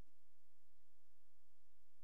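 Quiet room tone: a faint steady low hum, with no distinct event.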